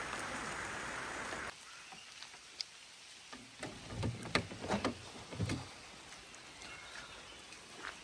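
Steady rain hiss that cuts off suddenly about a second and a half in. It is followed by a quieter stretch with scattered small knocks and a few soft low thumps.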